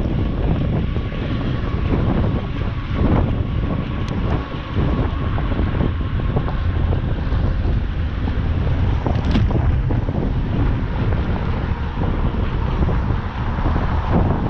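Strong wind buffeting the microphone during a bicycle ride, a dense low rumbling noise. A faint steady whine fades out about halfway through.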